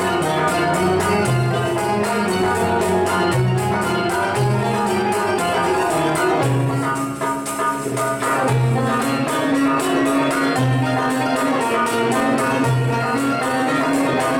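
Algerian chaâbi ensemble playing an instrumental passage: banjos, mandolin and a lute-like mandole over derbouka goblet drums keeping a steady rhythm.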